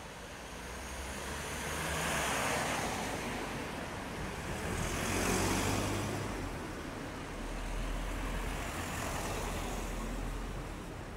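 Road traffic: cars passing one after another, swelling and fading, with the loudest passes about two and five seconds in over a low engine hum.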